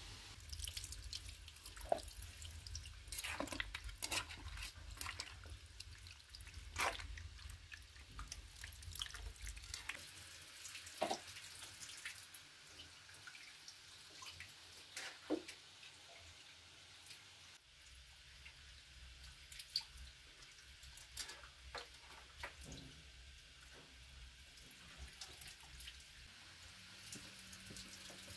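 Irregular light drip-like taps and clicks, a few every second or two, over a low hum that stops for several seconds in the middle.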